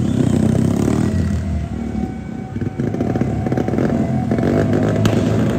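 Several motorcycle engines running together, a steady, loud mechanical drone.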